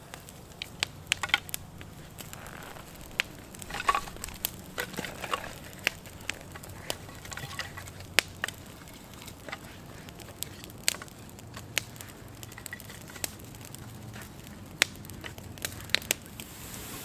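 Small campfire of dry twigs and split kindling, lit with fatwood, crackling as it catches, with many sharp irregular snaps and pops. Sticks are laid on and shifted, with a brief rougher crunch about four seconds in.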